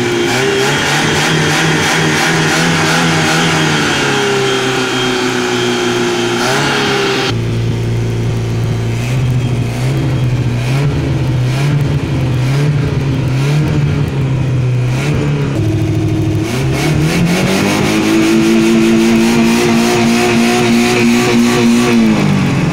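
Yugo's four-cylinder engine revved while parked: it is held at steady raised revs, then about three-quarters of the way through it is revved up, held high, and let fall back near the end. The later part is heard from inside the car's cabin.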